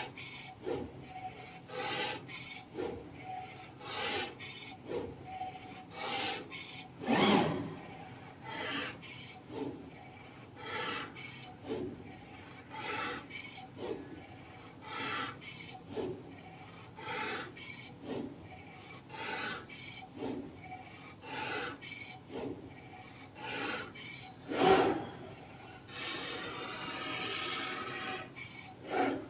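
CNC oscillating knife cutter grooving a 9 mm polyester fibre acoustic board: a rubbing cutting noise in short strokes about once a second over a faint steady hum, with two louder strokes, about seven seconds in and near the end. A steady hiss runs for about three seconds near the end.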